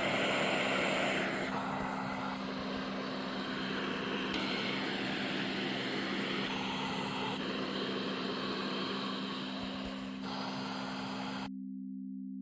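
Philips CoughAssist E70's blower running, a steady rush of air that shifts in level about a second and a half in, again around four seconds and near ten seconds, then cuts off abruptly near the end. A steady low two-note hum continues underneath.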